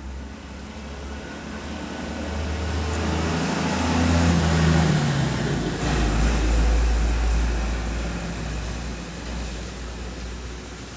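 Low engine rumble of a passing road vehicle, swelling about a third of the way in and fading over the following seconds.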